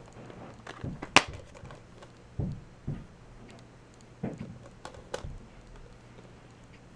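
A Blu-ray case and its packaging being handled: a sharp click about a second in, then a few soft knocks and more clicks.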